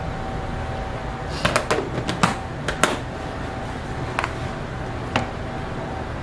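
Kitchen handling clatter: a quick run of light clicks and knocks, then two single taps, as a metal spoon, plastic tubs and a waffle on a wooden board are handled, over a steady background hum.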